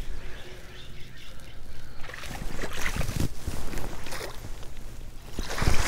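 Small hooked bass splashing and thrashing at the surface beside a bass boat as it is led to the landing net, with water slapping against the hull. A heavier thump near the end.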